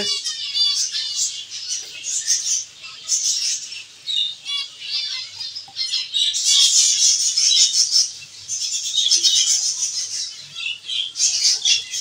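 Zebra finches calling: a steady run of short, high chirps that grows busier about halfway through.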